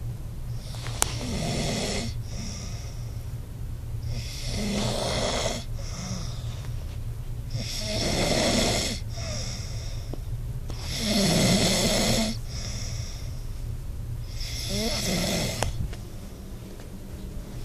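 A sleeping man snoring loudly: five long snores about every three and a half seconds, each followed by a softer breath out, over a steady low hum.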